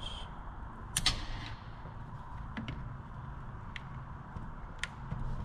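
A handful of short sharp clicks and light taps of hand tools working at the STIHL MS290 chainsaw's handle and anti-vibration plugs, over a steady low hum.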